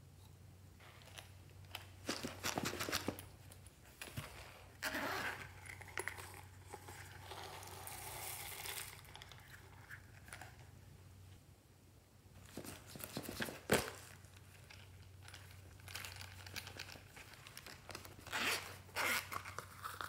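Hands handling feathers and plastic zip pouches over a tray of slime: scattered bouts of rustling, crinkling and scraping. Near the end a zip pouch is pulled open.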